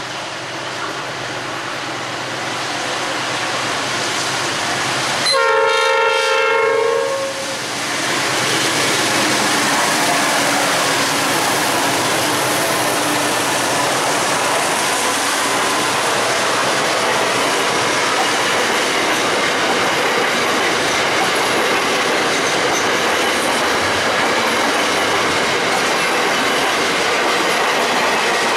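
Container freight train hauled by two NSW 80 class diesel locomotives approaching and sounding its horn, a chord held for about two seconds starting about five seconds in. The locomotives and a long string of container wagons then pass close by with a steady rumble and clickety-clack of wheels on the rails.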